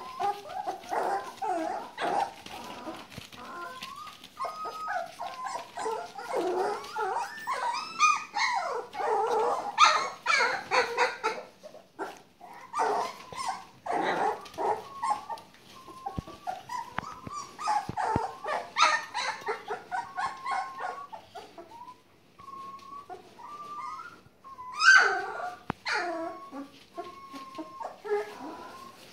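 Border collie puppies about four weeks old vocalising: many short, high whines and yips one after another, with louder cries about ten seconds in and again near the end.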